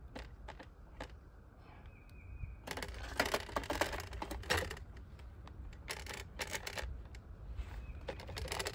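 Light clicking and rattling of an Alaskan chainsaw mill's metal frame as it is handled and set onto the chainsaw bar. The clatter comes in short bunches: about three seconds in, around six seconds, and near the end.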